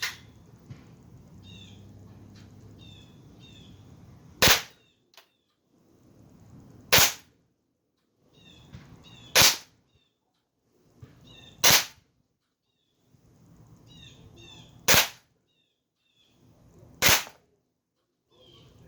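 Sig Sauer M17 .177 CO2 blowback pellet pistol firing six single shots, each a sharp crack, spaced about two to three seconds apart.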